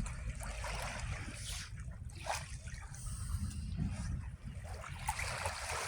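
Seawater lapping and trickling in small irregular splashes, over a steady low rumble.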